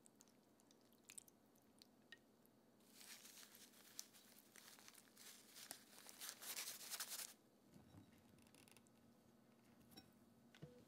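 Faint crinkling and crackling for about four seconds, starting about three seconds in, as dried bonito flakes are handled and sprinkled with a plastic-gloved hand. A soft click near the end.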